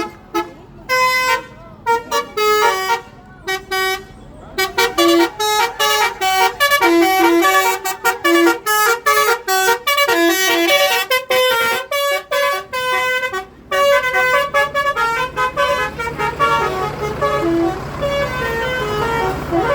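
Bus 'telolet' horn, a multi-tone musical air horn, playing a rapid tune of short honked notes over and over with brief breaks. A low steady drone comes in underneath in the last few seconds.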